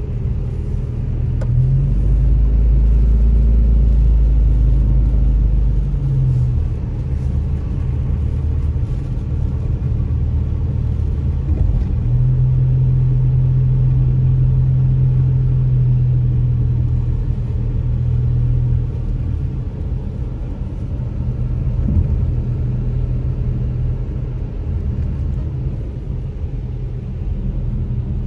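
Car interior noise while driving: a steady low rumble of engine and tyres on the road, with a deep drone that swells for a few seconds about two seconds in and a hum that strengthens again from about twelve seconds in.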